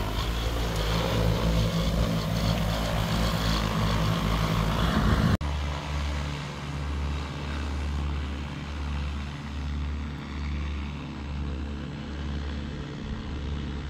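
Propellers of a large multi-rotor agricultural spray drone droning steadily close by, then after a sudden cut about five seconds in, a fainter, pulsing low hum as the drone flies in the distance.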